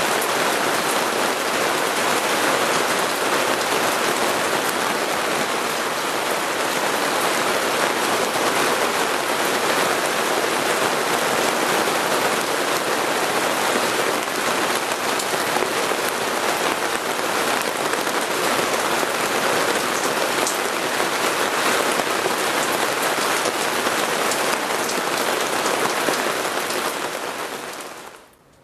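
Heavy rain falling steadily: a dense, even hiss of drops that fades out quickly near the end.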